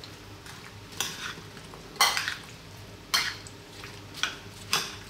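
A spoon stirring yogurt into diced fruit and walnuts in a bowl: about five short stirring strokes, roughly one a second.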